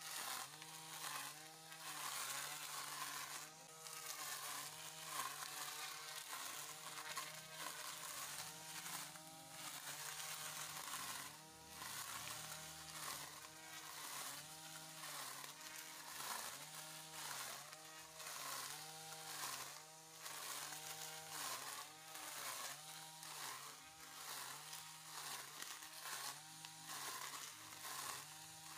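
Cordless battery grass trimmer with a plastic cutting blade running and cutting short lawn grass. Its electric motor whine wavers up and down in a regular pattern, with a light crackle from the grass being cut.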